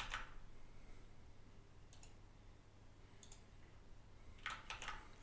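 Faint computer mouse clicks while working on a PC: a single click about two seconds in, another a second later, then a quick cluster of clicks near the end.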